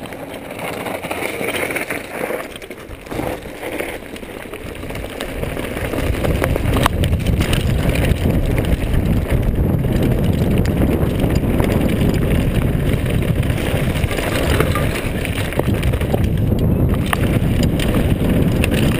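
Specialized Big Hit downhill mountain bike ridden fast down a gravel track: a steady rush of wind on the camera microphone and tyres on loose gravel, with occasional sharp knocks and rattles from the bike. The noise grows louder about six seconds in and stays up.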